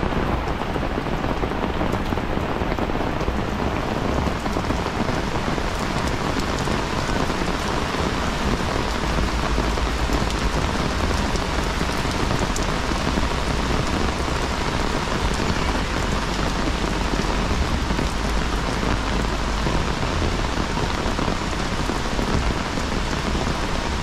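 Rain pouring down steadily, a dense even hiss of drops.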